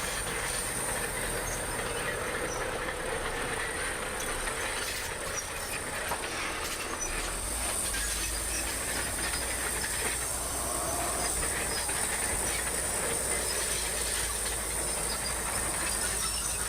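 Bulldozer working, its diesel engine running steadily under the clanking rattle of its steel tracks, with a thin steady high whine over it; it grows a little louder about halfway through.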